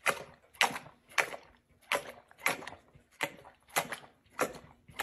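A yellow Labrador retriever eating or drinking from a raised stainless-steel bowl: short, sharp mouth sounds against the bowl, repeating evenly a little under twice a second.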